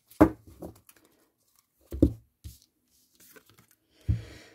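Tarot cards being handled and drawn from the deck, with a light rustle and three short, soft knocks about two seconds apart.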